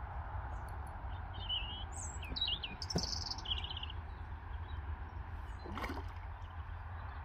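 A small bird chirping in several short, quick phrases over a steady low rumble. About six seconds in, a hooked carp splashes at the surface next to the landing net.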